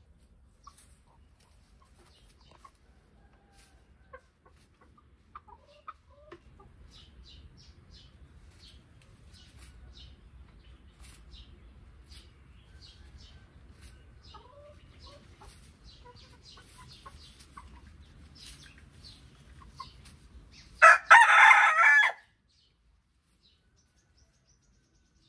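A rooster crows once, loudly, about three quarters of the way through. Before it the chickens make only faint, short clucks and small clicking sounds.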